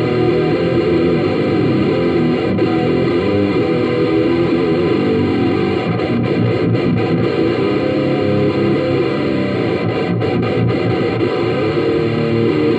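Distorted electric guitar played through a Marshall CODE 50 modelling amp with effects, the notes ringing into one another at a steady level.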